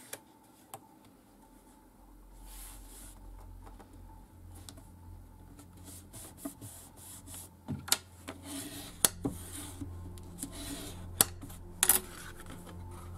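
Hands rubbing and pressing sheets of white cardstock flat on a cutting mat, smoothing down a freshly glued panel. There are papery brushing sounds, with a few sharp taps and clicks in the second half.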